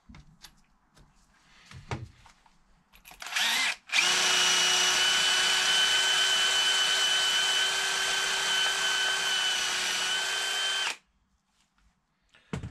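Cordless drill run briefly, then held running steadily for about seven seconds with an even whine, stopping abruptly. A few light clicks of parts being handled come before it.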